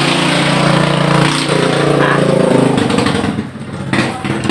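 A small engine running steadily close by, then dying away about three seconds in.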